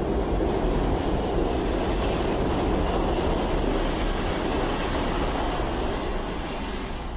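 New York City Subway 1 train of stainless-steel R62A cars pulling into an underground station: a loud, steady rumble of wheels on rail that eases a little near the end as the train slows.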